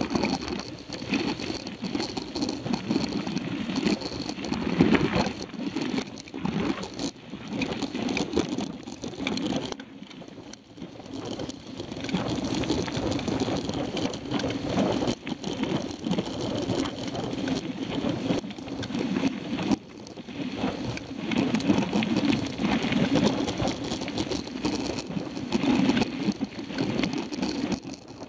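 Mountain bike rolling fast over a dirt and gravel road, picked up by a camera mounted on the handlebars: a continuous rumble of tyres on the rough surface with jittery rattling from the bike. It eases for a moment about ten seconds in.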